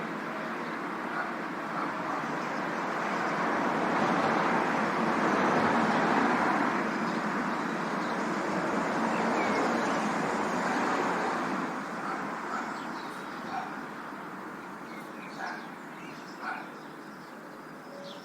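Urban park ambience with road traffic: a swell of traffic noise, loudest in the middle as vehicles pass, then fading away. A few short, sharp calls stand out over the quieter background near the end.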